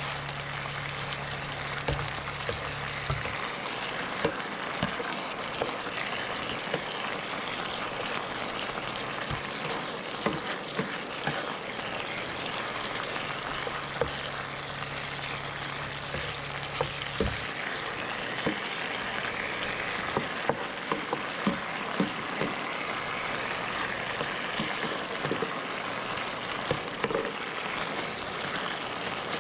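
Thick sauce sizzling and bubbling in a nonstick frying pan, with many short taps and scrapes from a plastic spatula against the pan. A low hum comes in at the start and again midway, then stops.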